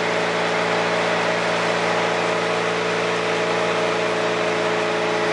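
Double screw oil expeller pressing soybeans, running steadily with a constant mechanical hum and several level tones over a noisy whir.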